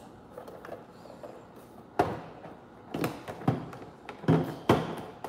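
Hard plastic toy pieces being handled on a tabletop: a quiet stretch, then about five sharp knocks and clicks in the second half.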